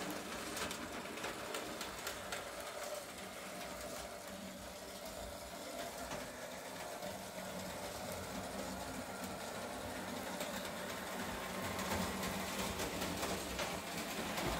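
Märklin model steam locomotive running along its metal track with two wagons in tow: a steady buzz from its small electric motor, with many small clicks, getting somewhat louder near the end.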